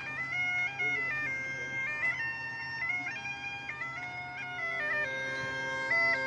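A Galician bagpipe (gaita) playing a melody, the chanter stepping from note to note over a steady drone.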